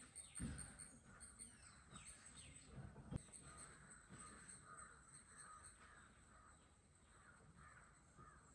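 Near silence with faint bird calls, and a few soft low thumps, about half a second and three seconds in, the second with a sharp knock.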